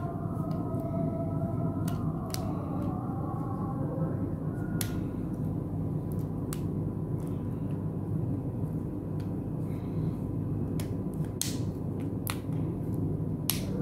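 Plastic back cover of a Vivo V20 smartphone snapping onto the frame as its edge clips are pressed in: a dozen or so sharp, scattered clicks, several close together near the end, over a steady low hum.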